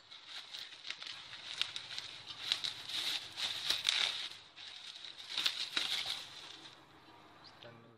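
Bubble-wrap packaging crinkling and rustling in irregular bursts as a metal drum stand is pulled out of it, dying away in the last two seconds.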